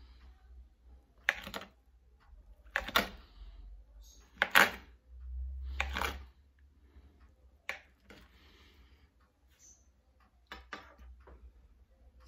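Kitchen knife chopping down through firm tapioca-and-cheese dough onto a glass cutting board: about seven sharp knocks, irregularly spaced roughly a second or two apart, two of them close together near the end.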